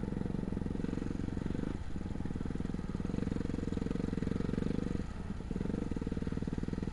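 Yamaha WR250R's 250 cc single-cylinder four-stroke engine running under way on a dirt trail, with brief throttle-offs about two seconds in and again around five seconds.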